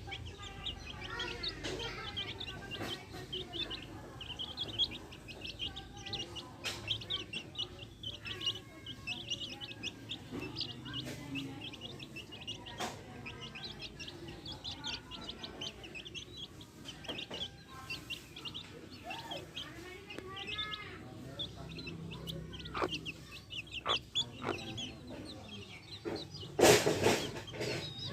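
Backyard hens clucking while their chicks peep constantly in quick, high chirps. Near the end there is a brief loud burst, the loudest sound of the stretch.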